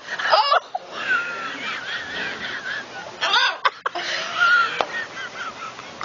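A woman laughing hard, in bouts, with two loud cries about three seconds apart. A caged macaw calls amid the laughter.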